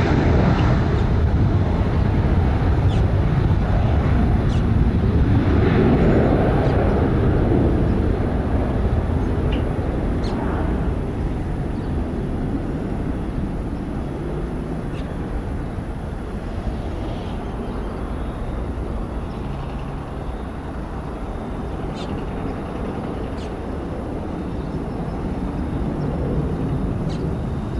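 Jet engines of a twin-engine Airbus A321 at takeoff power: a low rumble, loudest for the first seven seconds or so, then fading steadily as the airliner climbs away.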